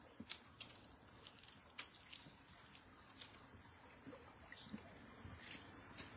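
Faint, steady, high-pitched night insect chorus, with a few sharp clicks and soft rustles from a hand searching in wet grass and shallow water.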